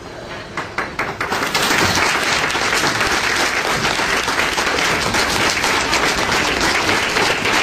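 Audience, many of them young children, applauding: a few scattered claps about a second in, swelling into steady applause.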